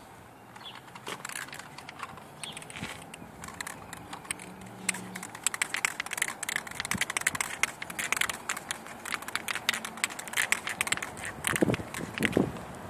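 A Plasti Dip aerosol can being shaken, its mixing ball rattling in quick, irregular clicks that grow louder and denser about a third of the way in.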